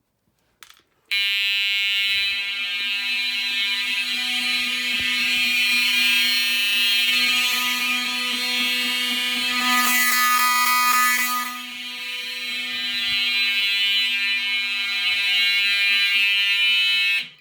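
Fire alarm horn sounding a continuous buzzing tone, set off by testing an i3 smoke detector. It starts about a second in and cuts off suddenly near the end.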